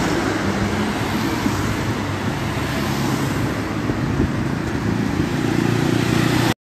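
Road traffic noise of cars passing along a wet street: engines and tyres in a steady rush. It cuts off abruptly near the end.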